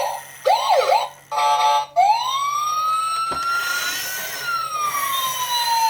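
Electronic police siren from a toy police motorcycle's sound unit: a few short rising chirps, a buzzing horn-like tone about a second and a half in, then a long wail that rises and slowly falls. A single click about three seconds in.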